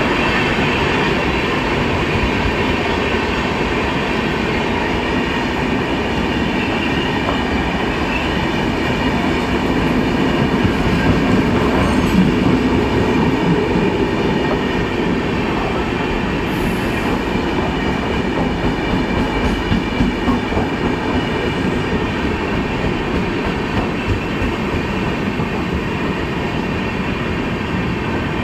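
Indian Railways passenger express train running along the track: a continuous loud rumble of wheels on rails, with small irregular peaks of wheel clatter.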